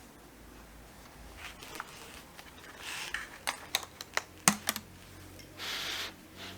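A run of light clicks and taps, a few sharper ones near the middle, followed by a brief rustling swish near the end.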